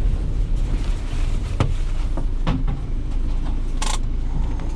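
Van running with a steady low engine and road rumble heard from inside the cab, with a few scattered clicks and knocks and one short hiss-like burst near the end.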